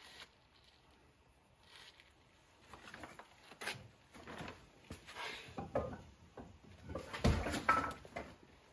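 Irregular wooden knocks, taps and rubbing as lengths of handle-blank wood are picked up and handled on a bandsaw table, sparse at first, then busier and louder in the second half.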